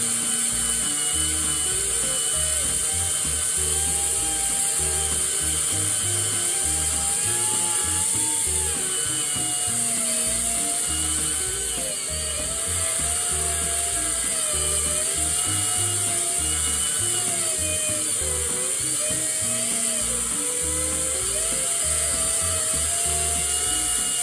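Background music with a repeating bass line and a wavering melody.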